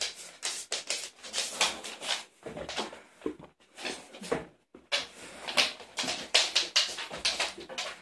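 Neapolitan mastiff nosing at its puppies close to the microphone: a quick, irregular run of short snuffling and rustling noises, with a couple of brief pauses.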